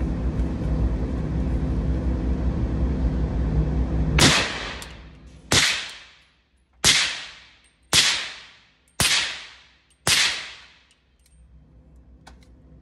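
Q Honey Badger .300 Blackout pistol fired six times through a Trash Panda suppressor with full-power supersonic loads, about one shot a second, each crack followed by a decaying echo in an indoor range booth. Steady background hum for the first four seconds, before the first shot.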